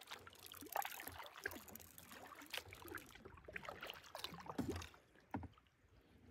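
Kayak paddle dipping into the water, with soft irregular splashes and trickling drips from the blade.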